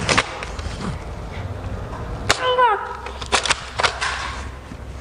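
Toy foam-dart blasters firing: sharp snaps near the start, one about halfway and a few more shortly after it. A short falling squeak follows the middle shot.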